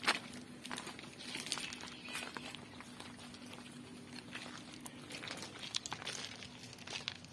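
Footsteps crunching on track ballast with irregular small clicks and rustles, over a faint steady low hum. A sharp click right at the start is the loudest sound.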